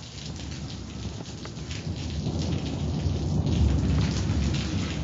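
Steady rain falling, with a low rumble of thunder that swells from about two seconds in and is loudest near the end.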